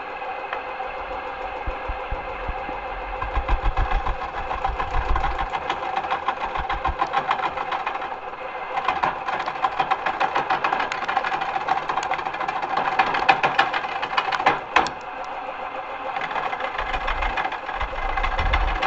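Wood lathe running with a steady motor whine while a carbide turning tool cuts a spinning wooden spindle. The cutting is a rough, rapid scraping chatter that swells and eases as the tool is worked along.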